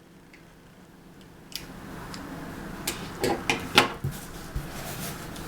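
Cardboard box and packing being handled and opened: rustling with a cluster of sharp knocks and clicks about halfway through.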